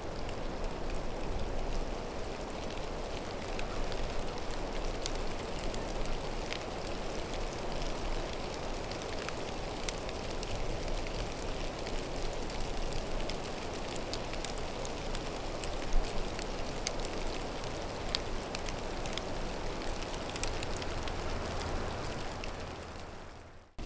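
Steady rain pattering, with scattered light ticks of individual drops, fading out near the end.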